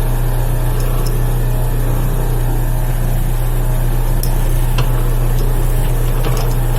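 Lathe motor running with a steady low hum while a drill bit bores into a spinning acrylic ring blank, with a few faint ticks.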